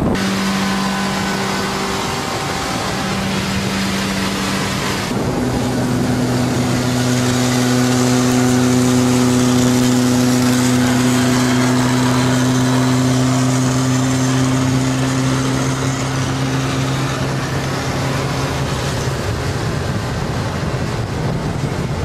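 Cars driving at speed: a steady engine drone over wind and road noise. About five seconds in the drone drops in pitch and grows a little louder.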